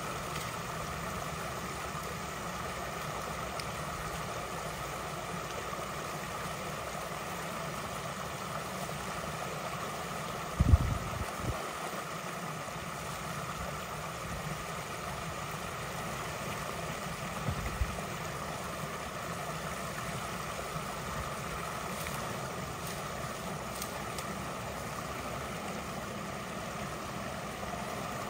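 Creek water rushing steadily at a culvert blocked by a beaver dam that is being unclogged, with a low thump about eleven seconds in and another about eighteen seconds in.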